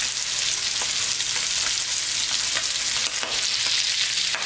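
New York strip steak searing in melted butter and oil in a nonstick frying pan: a steady sizzle with small crackles and pops, and one sharper pop near the end.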